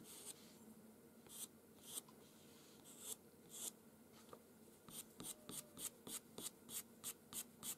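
Faint scratching of a pastel pencil on paper, making short flicked strokes to draw hairs of fur. A few scattered strokes come first, then a quick, even run of about four or five strokes a second near the end.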